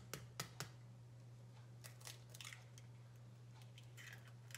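An egg tapped a few times against the rim of a bowl, then faint crackling twice as the shell is broken open and pulled apart, over a steady low hum.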